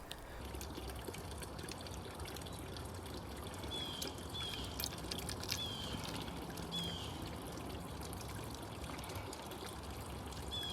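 Steady trickling, running water, with a bird giving short, high, downward-sliding chirps about five times.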